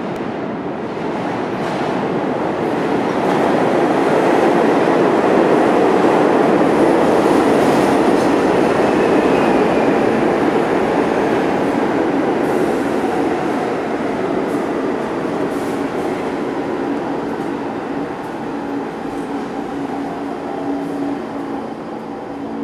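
R46 subway train pulling into an underground station: the noise of its wheels and motors swells as the cars come alongside, then eases off as the train slows, with steady tones coming up in the second half.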